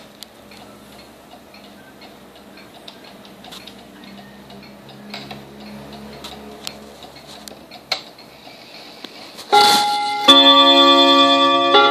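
Junghans Württemberg half-chime table clock ticking quietly. Near the end its hammers start striking the chime rods: several loud strikes whose ringing notes sustain and overlap.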